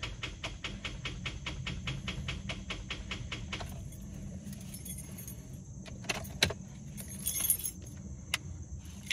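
A car's starter solenoid chattering in a fast, even run of clicks, about seven a second, for some three and a half seconds as the key is turned, with a few separate clicks later. The engine does not crank: typical of a battery too weak to turn the starter, in a car that has needed jump-starting.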